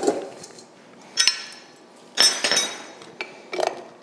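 Metal clinks from a KitchenAid stand mixer's stainless steel bowl and flat beater being handled and fitted: two ringing clinks about a second apart, then a softer knock near the end.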